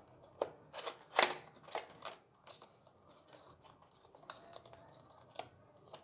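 A small cardboard retail box being opened by hand, its inner tray sliding out: a handful of sharp scrapes and clicks of card and plastic in the first two seconds, then a few faint taps.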